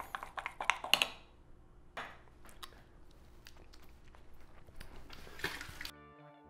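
A metal spoon clinking and scraping against a clear glass cup while stirring a thick powdered-sugar and whiskey glaze. The clinks are busiest in the first second, come again about two seconds in, and then turn to fainter scraping.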